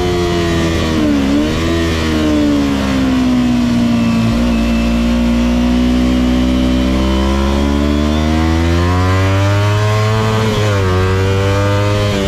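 Kawasaki Ninja 250's parallel-twin engine at speed on a race track, its pitch climbing and falling as the rider works the throttle and gears. The note dips sharply and recovers about a second in, sweeps up then slowly down through the middle, and climbs again before another quick drop near the end.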